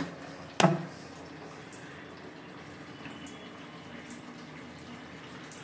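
A single sharp knock with a short ringing tail about half a second in, over a faint steady background hiss.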